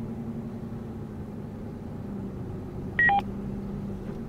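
Short two-tone electronic beep from the in-car ham radio, a high note dropping to a lower one, about three seconds in, over a steady car-cabin hum.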